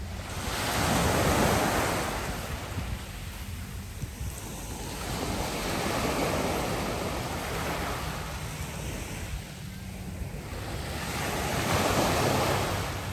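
Small waves breaking and washing up a fine pebble beach, the surf swelling and fading three times, about every five seconds.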